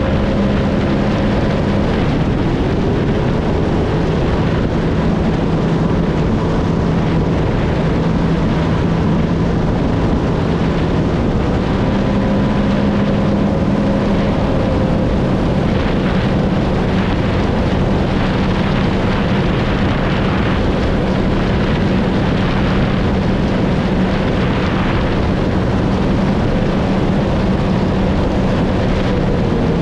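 Supercharged 1630 cc engine of a 2016 Sea-Doo RXP 300 personal watercraft running hard at speed, its steady drone holding nearly level with small rises and dips, over the rush of water against the hull.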